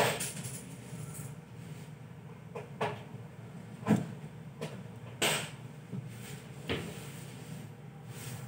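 Irregular light clicks and taps of a metal wax carving instrument working wax on a stone dental model, about ten in all, the sharpest at the start and about four seconds in, over a steady low hum.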